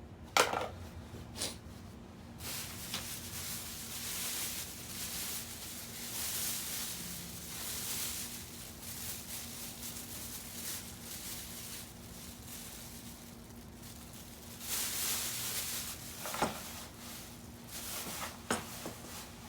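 Things being handled and moved about: a few sharp clacks near the start and again near the end, with a long stretch of uneven rustling and scraping between them. A faint steady hum runs underneath.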